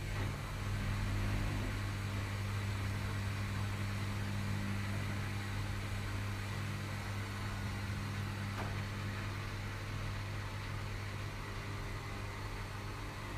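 Washing machine running with a steady low hum, its level slowly easing off.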